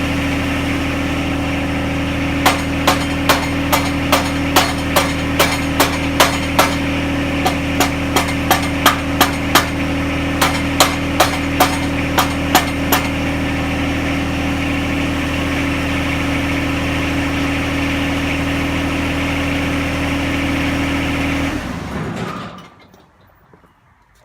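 John Deere 1025R tractor's three-cylinder diesel idling while a hammer strikes metal about three times a second in three runs of blows, driving a tight pin or fitting of the backhoe bucket connector into place. The engine shuts off about three seconds before the end.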